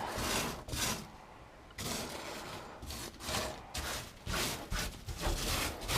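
Irregular rustling and scraping bursts of handling noise, with a short lull about a second in.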